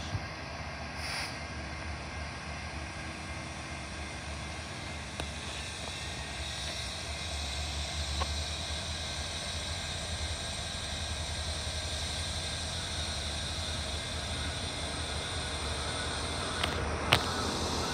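Diesel locomotive running slowly in a rail yard, heard at a distance as a steady low rumble that grows a little louder as it approaches. A single sharp click sounds near the end.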